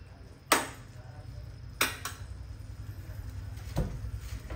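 A metal utensil knocking against a cooking pot twice as pasta is stirred, with a fainter knock near the end, over a steady low hum.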